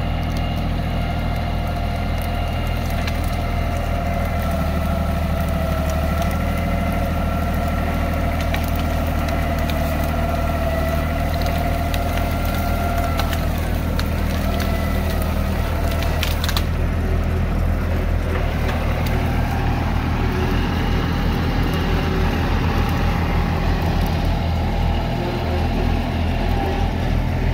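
Compact tractor's engine running steadily as its front-end loader bucket shoves into a pile of brush and logs, with branches cracking and snapping, most of them between about eleven and seventeen seconds in.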